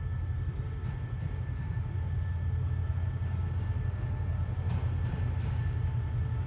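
Diesel-electric locomotive running with a steady low rumble at a station, with a couple of faint clicks about five seconds in.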